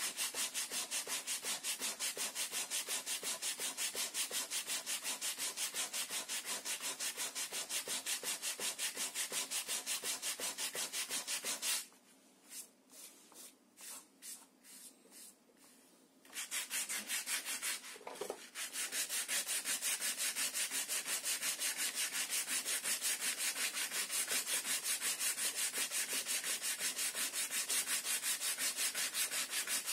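Sandpaper rubbed by hand in quick, even back-and-forth strokes over the planked wooden hull of a model ship. About twelve seconds in the strokes stop for about four seconds, with only a few faint taps, then a short scrape and the steady sanding starts again.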